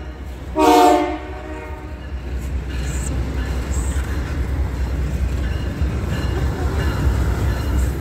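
A train horn sounds one blast of several tones together, about half a second in and lasting about a second. After it, a double-stack container freight train rolls past with a steady rumble of wheels on rail.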